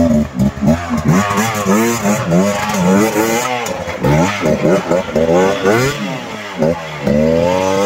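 Dirt bike engine revved over and over, its pitch rising and falling a couple of times a second as the bike is forced up a steep rocky climb.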